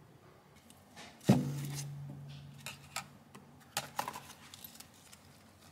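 Small plastic toiletry bottles and tubes being handled and packed into a clear zip pouch: one sharp knock about a second in, followed by a low hum that fades over about a second, then a few light clicks and rustles.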